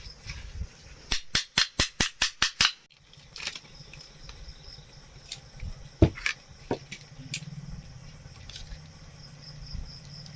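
Sharp metal taps and clicks from work on a ceiling fan motor's bearing. A quick run of about eight taps comes about a second in, then a few scattered single clicks and knocks.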